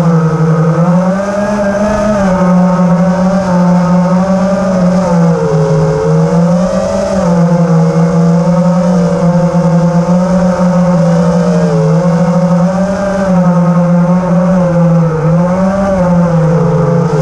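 FPV quadcopter's brushless motors and propellers whining steadily, the pitch rising and falling every second or two with the throttle.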